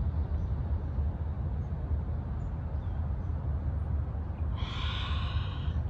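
Steady low outdoor rumble, with a single animal call about a second long near the end.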